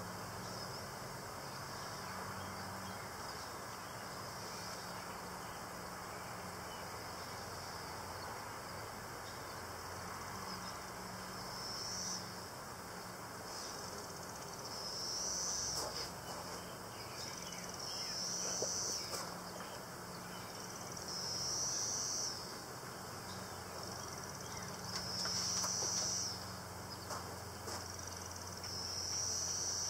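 Honeybees humming steadily around an open hive, with a few light clicks as wooden frames are handled. From about twelve seconds in, a high buzzing insect call repeats every three to four seconds, each call lasting about a second.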